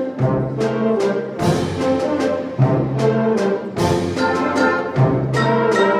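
School wind ensemble playing live: brass and woodwinds with short accented chords on a steady beat, a little more than two a second, and a low bass note held every couple of seconds.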